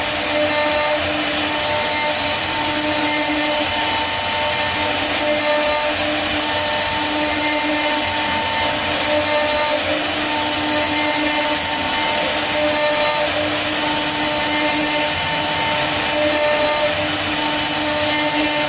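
CNC router's high-speed spindle running steadily while its bit mills a relief carving into a wooden panel: a constant hiss with a few steady whines that drop out and come back every second or two as the head moves.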